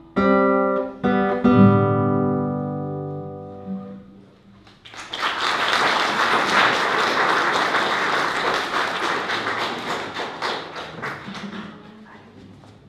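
Two classical guitars play their last few notes and let the final chord ring out and fade. About a second later an audience applauds for several seconds, dying away near the end.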